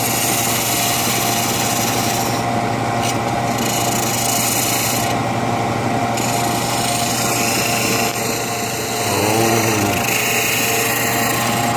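Wood lathe running with a turning tool cutting into the spinning wooden club: a steady motor hum under a scraping cutting noise whose hiss drops away briefly a few times as the tool comes off the wood.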